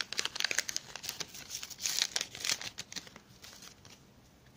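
A sticker-pack wrapper torn open and crinkled by hand: dense crackling that thins out after about three seconds.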